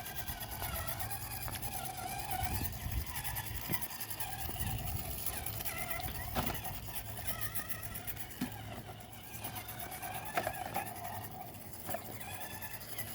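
RC rock crawler's 13-turn 550 brushed motor and drivetrain whining, the pitch rising and falling with the throttle, with a few short knocks as the truck climbs over rocks.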